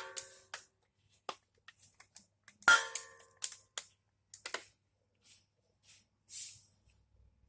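Metal clinks and clicks from handling tools and metal parts: two sharp ringing strikes about two and a half seconds apart, among scattered lighter clicks and short hissing scrapes.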